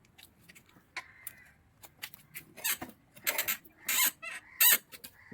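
Squeaking from the rear of a Honda CBR250R motorcycle: short, sharp squeaks repeating unevenly, faint at first and loud and more frequent from about two seconds in.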